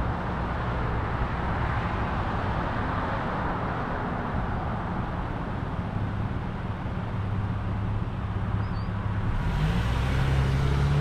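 Road traffic at close range: car engines running with steady road and tyre noise. Near the end one engine's pitch rises as it revs or pulls away.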